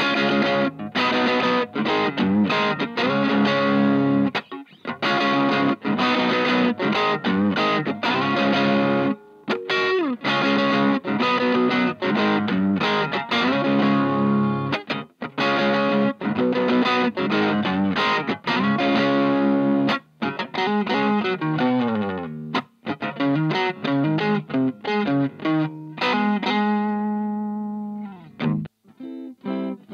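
Electric guitar played through a 2-watt Little Rebel kit amp into a Jensen CR8 speaker, overdriven: chords and riffs with a few short breaks. Near the end a chord is left to ring and fade out.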